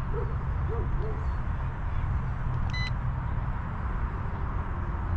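Steady rumbling wind noise on the microphone at an open shore. A few short low hoot-like calls come in the first second, and a single short high electronic beep sounds just under three seconds in.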